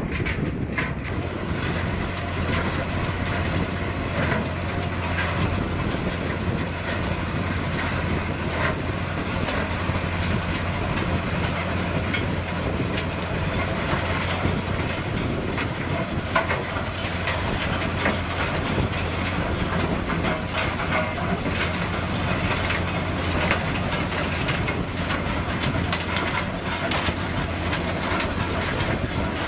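Heavy machinery running steadily, a constant low engine hum under continuous rattling and clatter.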